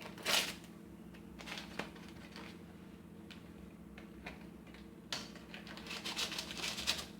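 Flour being measured and added by hand: a few soft clicks and scrapes, then a rapid rustling patter for about two seconds near the end.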